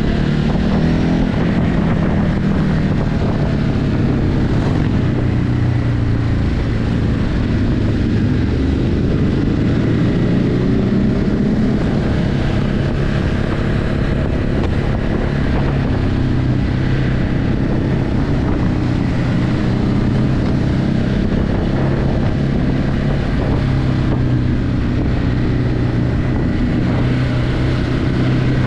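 Ducati Hypermotard 950's L-twin engine running through its stock exhaust while the bike is ridden, cruising at a fairly steady pitch with small shifts in engine speed, and wind on the microphone.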